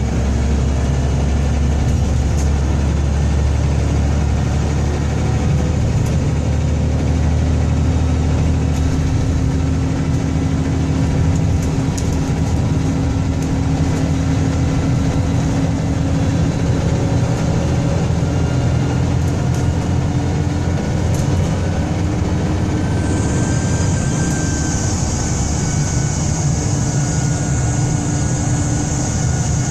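Inside an Alexander Enviro 300 bus on a MAN chassis on the move: the diesel engine and driveline drone steadily, with the thrash and whine of a bad differential, a tone that creeps slightly higher. A high hiss comes in about three-quarters of the way through.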